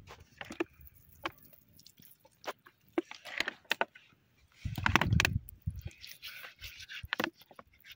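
Shoes scuffing and stepping on bare rock, with scattered small scrapes and clicks and a heavier footstep about five seconds in. From about six seconds in, water trickles from a plastic bottle onto the stone as a hand rubs the wet rock.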